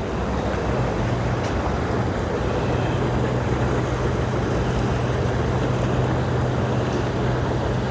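A steady low hum over a constant rushing noise, unchanging throughout.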